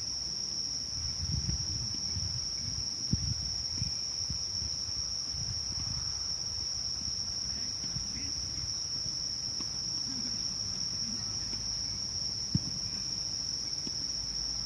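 Steady, high-pitched chorus of crickets, with a low rumble on the microphone underneath and two sharp knocks, about three seconds in and near the end.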